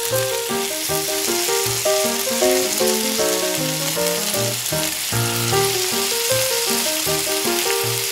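Hot cooking oil sizzling steadily as small puri dough rounds fry, with background music playing a light melody over it.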